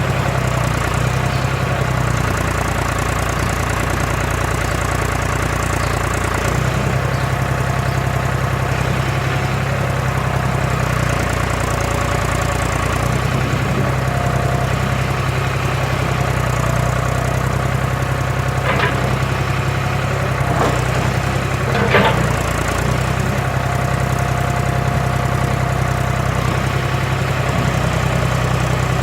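John Deere 300B backhoe engine running steadily, its low drone shifting a little every few seconds, with a few sharp knocks over it about two-thirds of the way through, the loudest near the end of that stretch.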